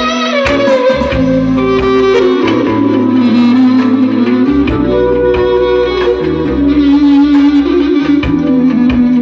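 Live instrumental band music led by clarinet, playing a winding melody with sliding ornaments over held bass notes that change every second or so.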